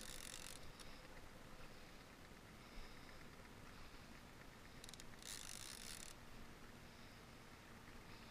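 Faint buzzing of a fishing reel's drag in two short spells, at the start and again about five seconds in, as a hooked salmon pulls line.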